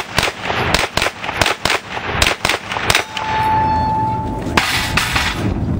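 Rapid gunfire from a 9mm pistol-calibre carbine: about a dozen quick shots in the first three seconds. A steady high tone follows for about a second and a half, then two more shots near the end.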